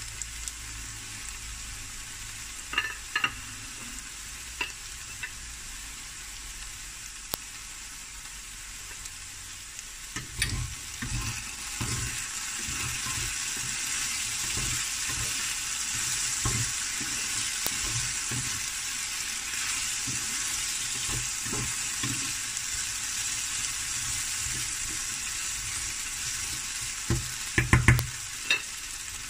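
Diced potatoes sizzling as they fry in a pan, with a steady hiss that grows louder about a third of the way in as a spatula starts scraping and turning them. Near the end, a few sharp clinks of a fork against the bowl of beaten eggs.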